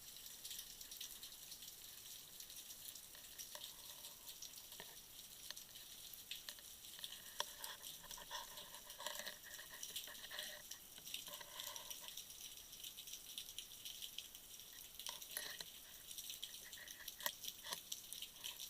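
Underwater crackle of snapping shrimp: a dense, steady fine clicking like frying fat. A few faint, brief tones come and go between about four and twelve seconds in.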